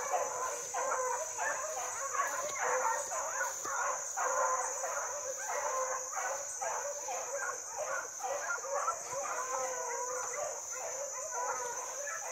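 An animal whining and yelping in short, repeated, pitch-bending calls, over a steady high-pitched hum.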